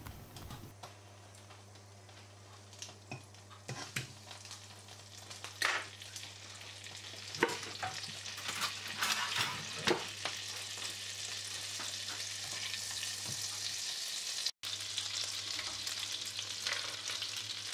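Butter melting and foaming in hot olive oil in a nonstick frying pan, sizzling louder as the butter heats. A few sharp clicks come in the first half.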